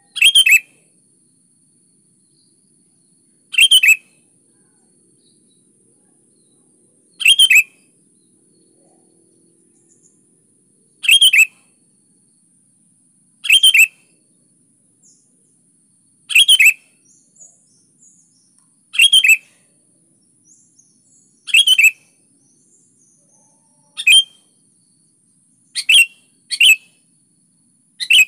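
Sooty-headed bulbul (kutilang) singing in short, bright phrases repeated every three to four seconds, coming quicker near the end.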